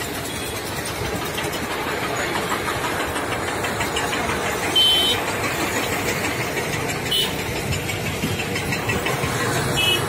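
Engines of dump trucks and excavators running steadily. A short high-pitched beep or squeak comes about halfway through, and fainter ones follow near the end.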